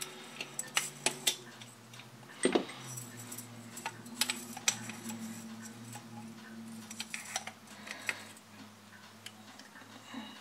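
Irregular small clicks and taps of a screwdriver and small parts being handled while a screw is worked into an airsoft Hi-Capa gas magazine, with a slightly louder knock about two and a half seconds in, over a faint steady low hum.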